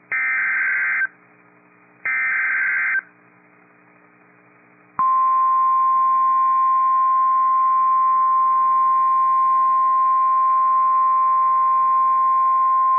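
Two short bursts of EAS SAME header data, screechy digital tones about a second each and a second apart. After a quiet pause comes the steady single-pitch NOAA Weather Radio 1050 Hz warning alarm tone, held for about nine seconds. It marks the start of a new alert, a tornado warning.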